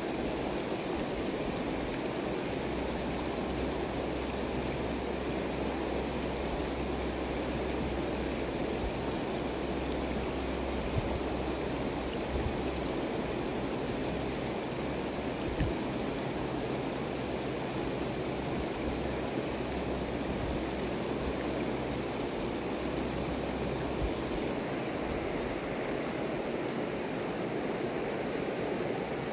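A shallow river running over stones: a steady rushing of water.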